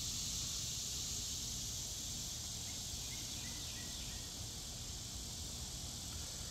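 Outdoor background ambience: a steady high hiss over a low rumble, with a few faint short chirps midway through and no distinct handling sound.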